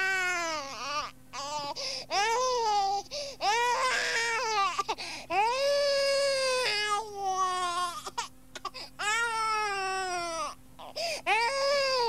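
Recorded sound effect of repeated wailing cries, like an infant crying. Each cry is a long pitched wail that rises and then falls over about a second, and they come one after another with short gaps. A faint steady hum from the tape playback runs underneath.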